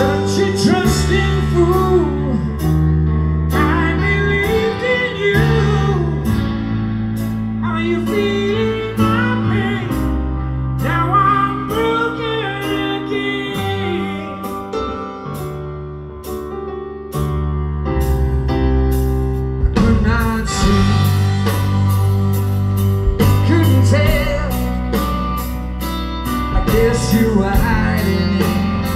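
Live rock band playing: a male lead vocal over electric guitar, bass guitar and drums, heard from within the audience. The band eases off briefly midway, then builds again.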